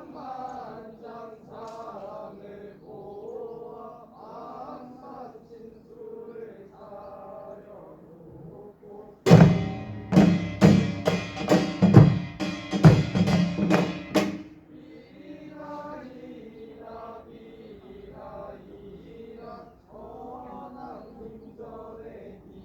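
A voice sings a gosa ritual chant in a sing-song line. About nine seconds in, a loud burst of Korean pungmul percussion (rapid, sharp drum and gong strikes) plays for about five seconds, and then the chanting resumes.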